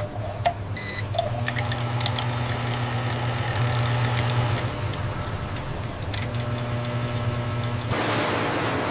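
Factory processing machinery running with a steady low hum and scattered clicks. A short beep sounds about a second in, and a hiss joins near the end.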